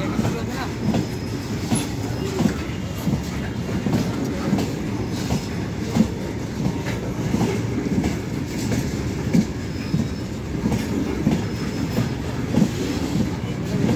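A loaded Indian Railways freight train of BOXN open wagons rolls past close by. Its wheels clack over the rail joints in an irregular run of knocks over a steady rumble, with a brief faint wheel squeal now and then.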